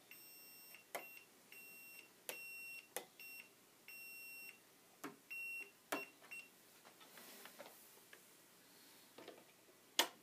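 Fluke 87 multimeter beeping: about eight irregular beeps at one high pitch, some brief and some held for half a second, over the first six seconds, as the continuity test leads make and break contact. Light clicks and taps fall between the beeps, and a sharper click comes near the end.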